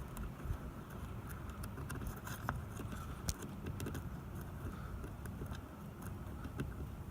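Small, irregular metallic clicks and scrapes of a pick tool working inside an Isuzu Rodeo's lock as it is being picked open.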